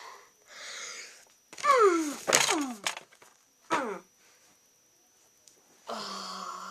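A person's wordless voice: two breathy exhalations, then loud groans that slide down in pitch about two seconds in, a shorter falling groan near four seconds, and a breathy sound with a low steady hum near the end.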